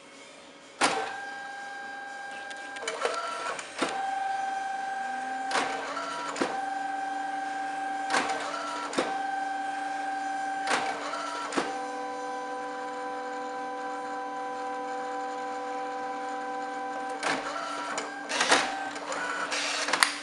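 HiTi dye-sublimation photo printer printing from a smartphone: a steady motor whine, broken every second or two by sharp mechanical clicks, then a busier clatter near the end as the finished print is pushed out of the front slot.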